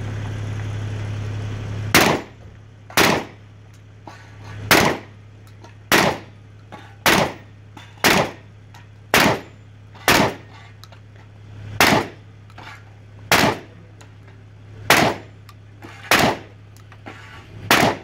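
A Mossberg 930 12-gauge semi-automatic shotgun fired thirteen times in a steady string, a shot roughly every second with a few longer pauses, starting about two seconds in. A steady low hum runs underneath.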